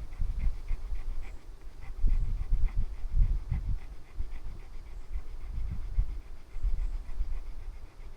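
Dog panting quickly, about four breaths a second, hot and overheated after walking in the sun.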